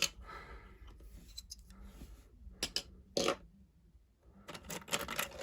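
Plastic Lego pieces being handled and set down: soft rustling with a few sharp clicks and taps, and a quick run of clicks near the end.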